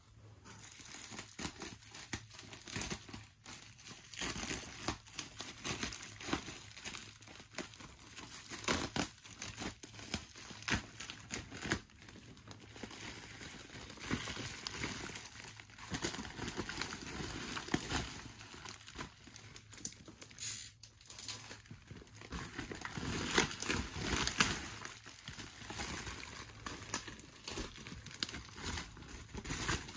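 Bubble-wrap packaging crinkling and crackling as it is handled and opened, with irregular sharp crackles throughout.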